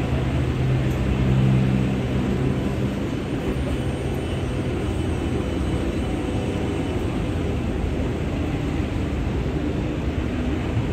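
Steady road traffic noise on a busy city street, with an engine hum standing out for the first few seconds.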